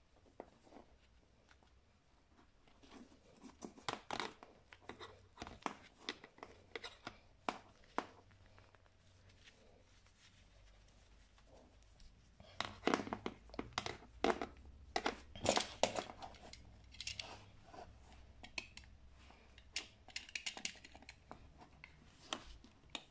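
A blade cutting and scraping the plastic sheath and insulation off a white electric cable, stripped by hand in clusters of short scrapes and clicks.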